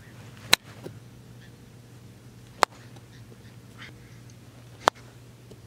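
A foot-long cut-down golf wedge striking golf balls off turf: three sharp clicks about two seconds apart.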